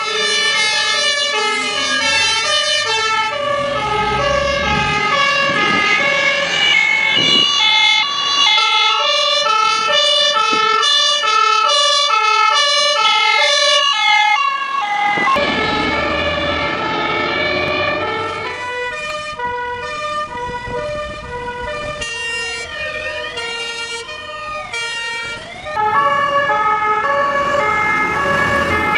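Fire truck sirens: a two-tone siren switching quickly between a high and a low note, with engine rumble underneath at times. Past the middle, a wailing siren sweeping up and down joins in, softer; near the end the two-tone siren comes back louder.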